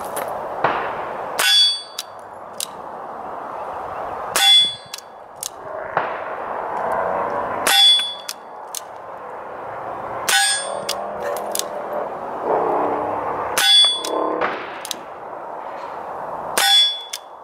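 Six suppressed shots from an M1895 Nagant revolver firing subsonic 7.62×38mmR rounds, about three seconds apart. Each shot is met at once by the clang of the steel target being hit, which rings on briefly.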